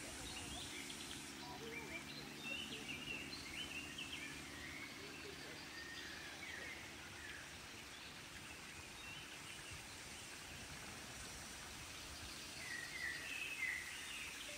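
Birds chirping on and off over steady outdoor background noise, the calls busiest in the first few seconds and again near the end.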